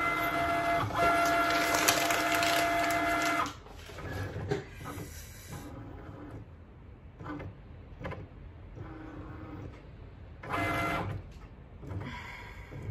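Cricut Maker cutting machine running a print-then-cut sticker sheet as a calibration test. Its motors whine steadily for about the first three and a half seconds, then go quieter, with short runs of motor noise and pauses between them and one louder run near the end.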